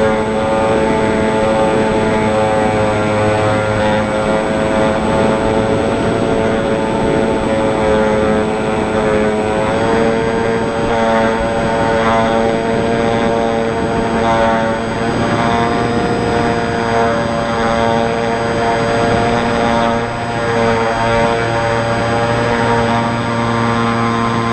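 Motor and propeller of a small R/C VersaWing flying wing running steadily, heard from a camera on board, its pitch stepping up slightly about ten seconds in.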